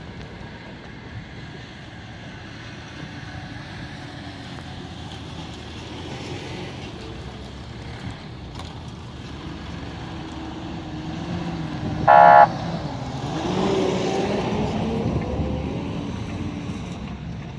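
Off-road 4x4 vehicles passing slowly, engines running at low revs. About twelve seconds in comes a short car horn toot, the loudest sound, and right after it an engine revs up.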